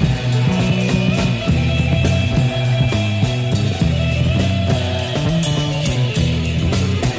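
Psychedelic rock band playing an instrumental passage: guitar over a moving bass line and steady drums.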